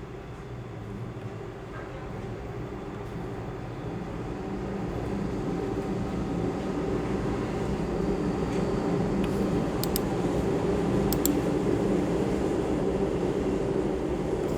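A steady low mechanical rumble that swells louder over the first half and then holds, with a few sharp clicks near the end.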